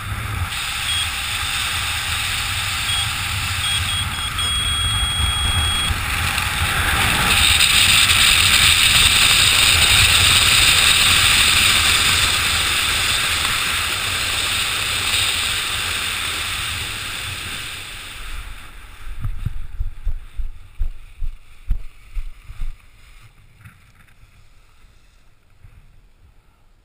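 Wind rushing over a helmet camera's microphone as a skydiver descends under a parachute canopy, swelling to its loudest about eight to twelve seconds in and then dying away as the canopy slows for landing. Irregular thumps follow as the jumper touches down and runs out the landing on grass, and faint high beeps sound in the first few seconds.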